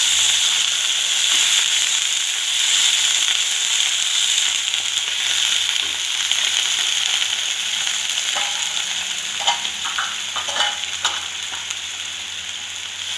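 Water sizzling in a hot kadai of sautéed beetroot and onion, the hiss dying down gradually as the pan cools, while a wooden spatula stirs and scrapes the vegetables. A few short knocks of the spatula against the pan come near the end.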